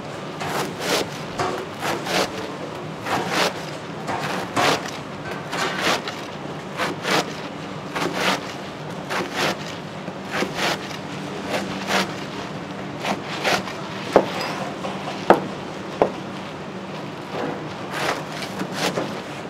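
Broad flat knife crunching down through a slab of oranda, the sugar-glazed puffed snack balls cracking under the blade with each stroke, the cuts coming mostly in pairs about a second apart. Three sharper, louder knocks come in the middle, over a faint steady hum.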